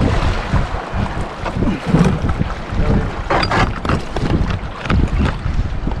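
River water rushing and splashing along a canoe's hull as it is paddled downstream, with paddle strokes in the water and wind buffeting the microphone. A louder burst of splashing comes about halfway through.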